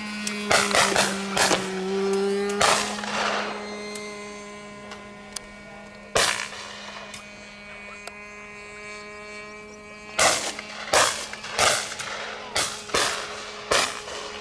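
Shotguns firing at clay pigeons from several stands: about a dozen echoing shots, several in quick pairs near the start and a rapid run of them in the last few seconds. A steady hum sits underneath.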